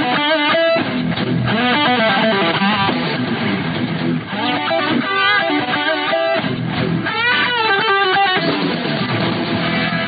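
Music led by an electric guitar, with bending, sliding notes over a low bass line.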